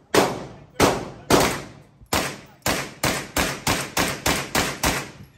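A string of about a dozen 9mm carbine shots from a Hi-Point 995. The first shots come about a second apart, then the pace quickens to roughly three shots a second in the second half, each shot trailing off in a short echo.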